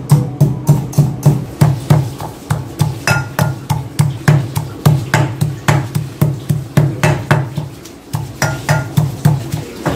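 Metal pestle pounding garlic and chili in a metal mortar: a steady run of dull thuds with a sharp click on each, about three strokes a second, with a brief pause about eight seconds in.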